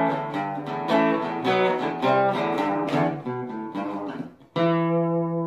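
Guitar music: a run of strummed and picked chords, then a final chord struck near the end that rings out.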